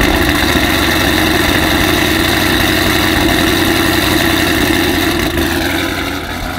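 Heavily modified Camaro ZL1 V8, built to about 1,300 wheel horsepower, idling loud and steady just after starting, not yet warmed up. Its level eases down a little near the end.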